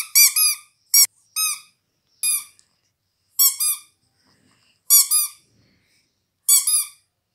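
A hand-squeezed rubber squeaky toy shaped like a tiger squeaking again and again. The short squeaks rise and fall in pitch and come singly or in quick pairs, roughly once every second or so.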